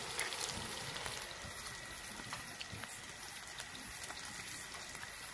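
Cauliflower pakoras deep-frying in hot oil in an iron kadai: a steady sizzle with faint scattered crackles.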